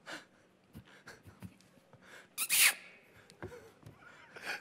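A short, sharp breathy burst of air from a person's mouth into a close microphone, about halfway through, among faint mouth clicks; another breathy sound rises right at the end.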